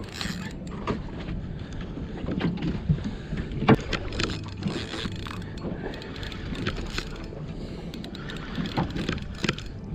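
Spinning fishing reel being cranked, winding in line against a hooked fish, with scattered clicks and knocks, the loudest about four seconds in, over a steady low background noise.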